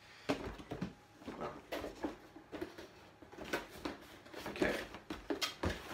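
A cardboard packaging box being opened and handled: irregular scrapes, rustles and light knocks of cardboard and the packing inside.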